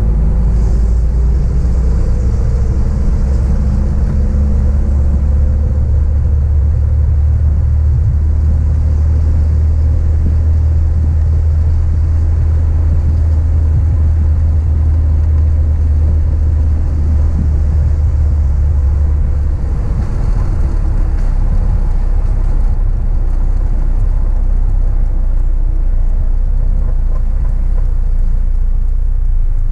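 1966 Triumph Spitfire's four-cylinder engine running as the car drives along, heard from the open cockpit with the top down. Its low drone drops noticeably about two-thirds of the way through.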